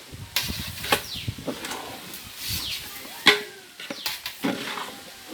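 Metal ladle knocking and scraping in a cooking pot while the curry is stirred: several sharp knocks, with short falling squeaks between them.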